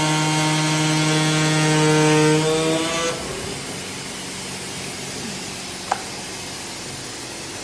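Digital flatbed cutting plotter's cutting head running with a steady pitched hum while cutting a gasket sheet, rising slightly in pitch and stopping about three seconds in. A steady hiss continues afterwards, with a single sharp click just before six seconds in.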